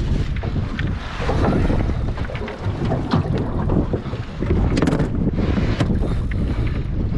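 Strong wind buffeting the microphone in a low rumble over open water, with a few short clicks or knocks about three and five seconds in.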